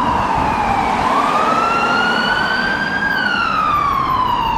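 Ambulance siren wailing, its pitch sliding down, rising for about two seconds, then falling again, over a steady traffic-like rumble.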